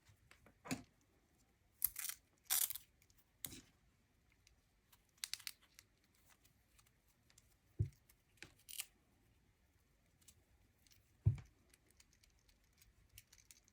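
Velcro hook-and-loop strips being pulled apart and pressed together: a handful of short rasping rips, with a few dull knocks from handling a pocket knife and a small flashlight.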